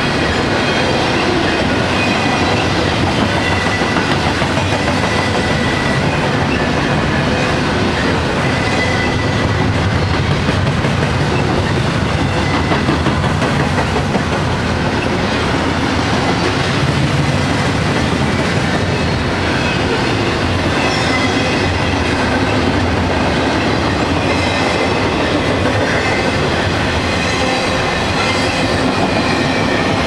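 Double-stack intermodal well cars rolling past at speed, their steel wheels running steadily on the rails.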